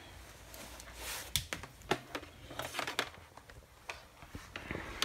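Faint scattered clicks and light knocks of hands handling the open TV and its parts, several short ticks spread over a few seconds above a low hum.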